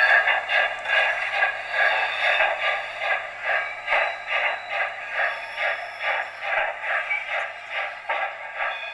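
O-scale model freight train running past on its track, with a steady rhythmic clatter at about three beats a second that grows a little fainter toward the end.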